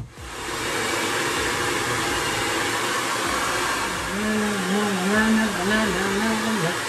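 Handheld hair dryer switched on, coming up to full blow within about half a second and then blowing steadily as it dries wet hair. From about four seconds in, a man's voice sings along over it.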